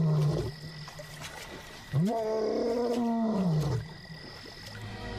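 Male African lion roaring: the tail of one long call fades out about half a second in, then a second call of about two seconds rises and falls in pitch. He is calling over and over to find his lost brother.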